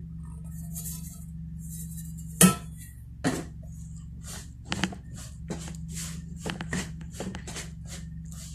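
Metal spoon stirring flour in a plastic mixing bowl: a string of sharp scrapes and knocks against the bowl, about one or two a second, starting a couple of seconds in, the first the loudest. A steady low hum runs underneath.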